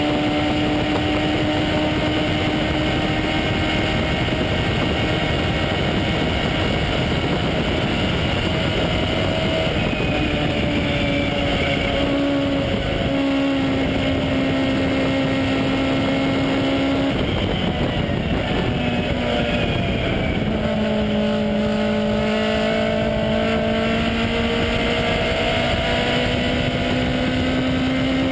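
Aussie Racing Car's Yamaha 1.3-litre four-cylinder motorcycle-derived engine under hard load on track, heard from inside the cockpit over steady wind and road noise. The engine note holds high and sags slowly, breaks up briefly as the driver lifts off and changes down about two-thirds of the way through, then climbs steadily again under acceleration.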